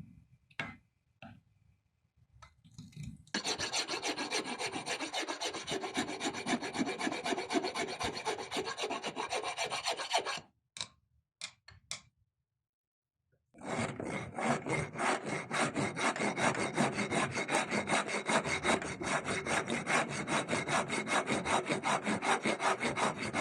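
A hand tool cutting into wood in fast repeated strokes. A stretch of about seven seconds comes first; then a few knocks, a short pause, and a second long stretch of strokes.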